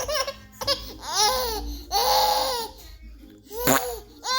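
A baby laughing and squealing in a string of short, high-pitched bursts, delighted by fart sounds made for her. The longest squeal comes about two seconds in.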